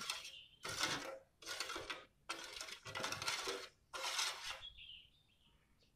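Metal spoon stirring liquid coffee in a metal saucepan, scraping and clinking against the pan in repeated strokes about once a second, stopping about five seconds in.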